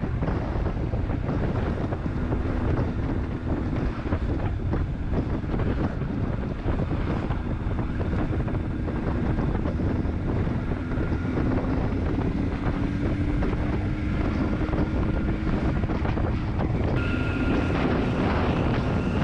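Wind buffeting the microphone of a helmet-mounted GoPro on a moving motorcycle, with the bike's engine note running underneath and rising slowly in pitch through the middle. Near the end the sound changes abruptly and a steady higher whine comes in.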